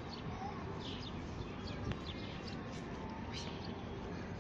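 Birds chirping: several short, high calls that slide downward, scattered over a steady outdoor background rush.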